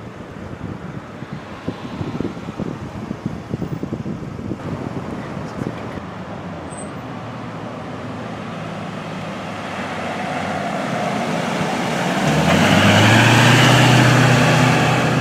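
Traffic noise with low buffeting at first, then an ambulance drives up and passes close by, its engine growing louder and loudest from about twelve seconds in.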